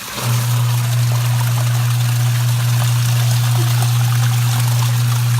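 Costway mini twin-tub washing machine's wash motor switching on and humming steadily as it drives the agitator, with water pouring into the tub from a bucket.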